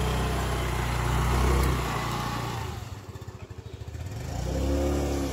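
Small petrol motor scooter engine running under throttle as it pulls away, easing off about two seconds in, then speeding up again near the end.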